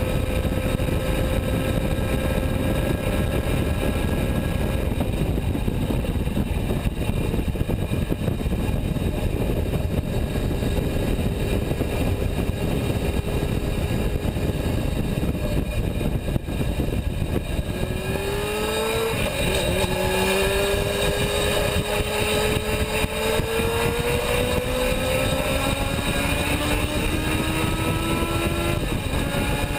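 Honda CBR600F3's inline-four engine running at high road speed under heavy wind rush. About two-thirds through, the engine note dips at a gear change, then climbs steadily as the bike accelerates.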